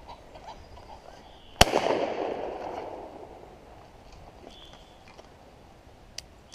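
A single shotgun shot about one and a half seconds in, its report echoing and dying away over about a second and a half.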